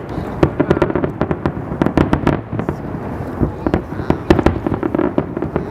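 Aerial fireworks going off in a rapid, irregular barrage of overlapping bangs and crackles.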